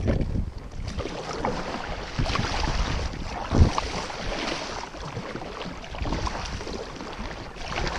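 Kayak paddle strokes dipping and splashing in the water, with wind rumbling on the microphone and a single knock about three and a half seconds in.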